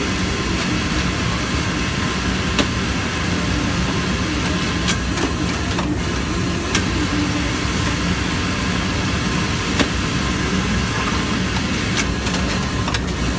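Industrial automatic pocket-flap sewing machine running: a steady mechanical hum with a few sharp clicks at irregular intervals.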